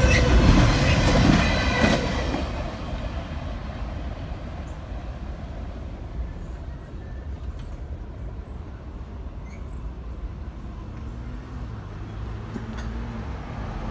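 Double-stack intermodal freight train cars rolling past on steel rails. They are loud for about the first two seconds as the last cars go by, then fade to a low, receding rumble.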